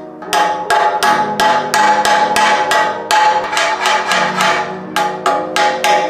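Claw hammer pounding a nut into a bolt hole in a steel winch bumper: quick, even metal strikes, about three a second, each with a short metallic ring. Background music plays underneath.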